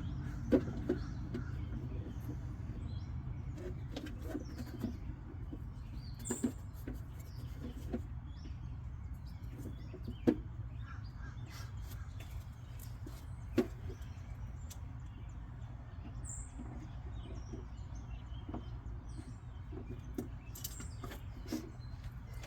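Scattered light clicks and knocks from hand work on parts, with a few short bird chirps now and then, over a steady low hum.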